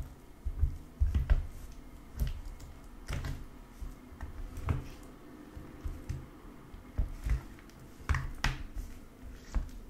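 Plastic spoon stirring and lifting a wet, glittery blue slime mixture in a plastic tray: irregular sticky clicks and small squishes.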